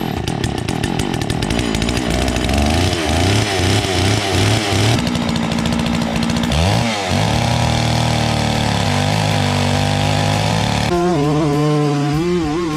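Chainsaw in an Alaskan sawmill frame running at high revs while ripping a black walnut log lengthwise. Its engine pitch rises and falls as the load changes, sagging and recovering about seven seconds in, then holds steadier.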